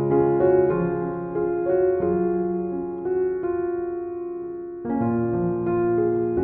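Background music: a calm piano melody of single struck notes over low held notes, softening for a moment about two-thirds of the way through and picking up again.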